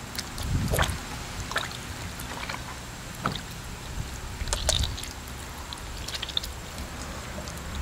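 Wet wheat dough being squeezed and kneaded by hand under starchy water in a metal bowl, with irregular squelches and splashes as the starch is washed out of the gluten.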